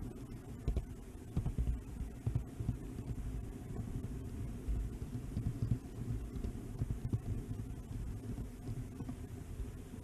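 Low rumbling with irregular knocks from a model train carrying the camera as it runs along the layout's track, its wheels and motor vibration carried straight into the microphone.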